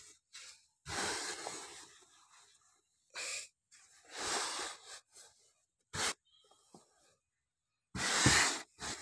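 Hand scraping and scooping sand off a buried plastic toy: several separate bursts of gritty rustling, the loudest near the end.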